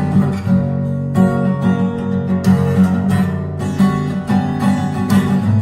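Instrumental music: an acoustic guitar strumming chords in a steady rhythm during a break in a song.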